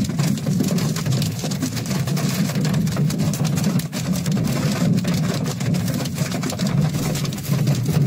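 Hailstones pelting a car's roof and windshield, heard from inside the car: a dense, unbroken clatter of hits over a low steady hum.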